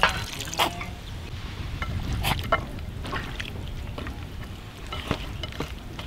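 A hand squeezing and tossing raw chicken wings with garlic and ginger in soy sauce marinade in an earthenware bowl: scattered wet squelches and clicks, the loudest near the start.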